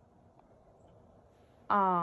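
Near silence, then near the end a long, drawn-out voice begins, held on one steady pitch.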